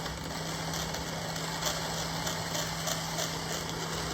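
Electric coffee grinder with 71 mm stainless-steel conical burrs grinding beans at slow feed speed: a steady motor hum over an even grinding noise.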